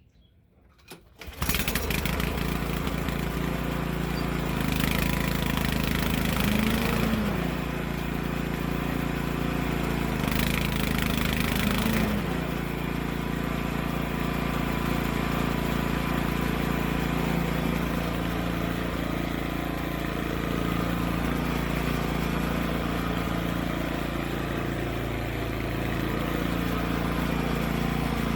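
Toro TimeMaster walk-behind mower engine starting about a second in and then running steadily. Around five and ten seconds in, a rushing noise comes in and the engine pitch briefly dips. The mower is being run to try out its freshly adjusted blade engagement and transmission cables.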